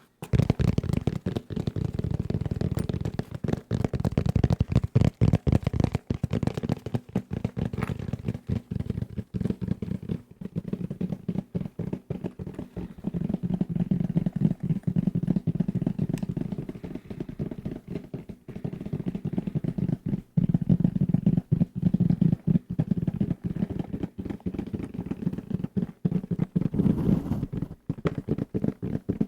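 Fast, aggressive fingertip tapping on assorted desk objects close to the microphone: a dense, unbroken run of many dull, low-pitched taps a second.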